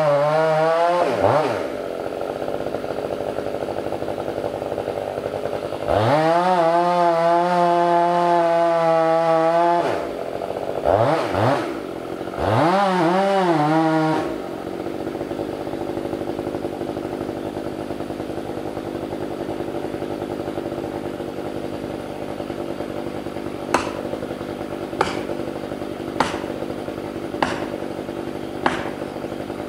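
Stihl 500i two-stroke chainsaw cutting at full throttle in two long runs with short revs between them, then settling to a steady idle. Near the end a series of sharp knocks comes about once every second and a quarter over the idling saw.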